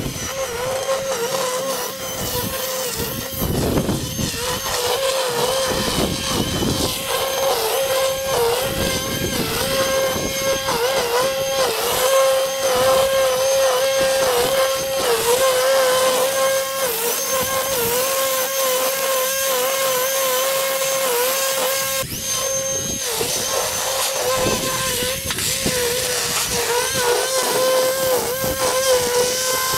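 Battery-powered lawn equipment motor running with a steady whine that wavers slightly in pitch, over a rougher rushing noise; the sound dips briefly a little after the middle.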